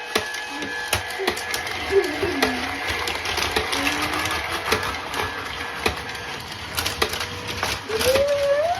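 Battery-powered Plarail toy train running on plastic track: a fast, steady mechanical rattle with a thin motor whine and scattered clicks of plastic parts. The whine stops about two-thirds of the way through.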